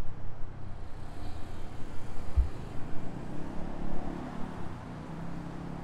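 Street traffic: a motor vehicle's engine running close by over a low rumble, with a brief low thump about two and a half seconds in.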